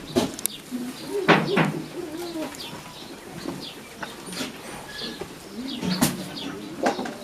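Animal and bird calls at a goat farm: a wavering call about a second in, with short high chirps and a few sharp clicks around it.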